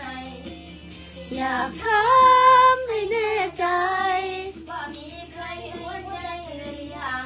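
A young girl singing a melodic line. About two seconds in she holds one long note, the loudest part.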